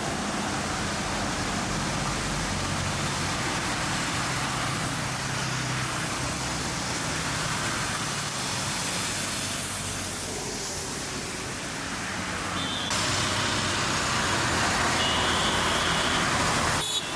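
Continuous road traffic: engines running and tyre noise from passing cars and other motor vehicles. The sound changes abruptly about 13 seconds in, and brief high-pitched tones sound near the end.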